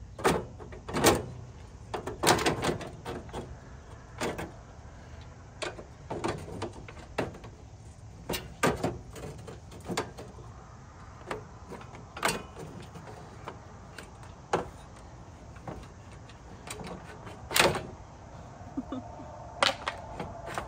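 Scattered sharp knocks, clicks and clunks at irregular intervals as a Jeep Cherokee XJ's radiator and the plastic pieces fitted around it are handled and pulled loose by hand.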